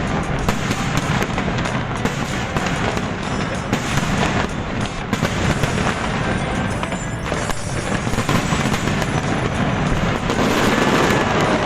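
Fireworks going off in quick succession, a dense run of bangs and crackles, with loud music playing over them.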